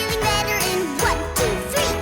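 Cartoon music with a melody line that slides up and down.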